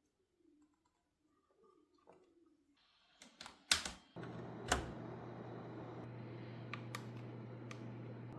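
Faint ticks, then a few sharp clicks and taps from handling hard plastic. About four seconds in, a steady low hum with hiss starts abruptly and carries on, with a few more light clicks over it.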